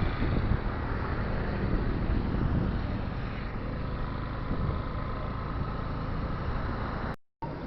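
Steady wind rush on the microphone mixed with road and engine noise from a moving motor scooter; it cuts out for a moment near the end.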